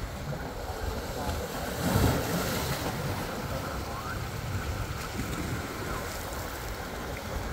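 Wind buffeting the microphone over sea waves washing against boulder rock armour, with a louder surge about two seconds in.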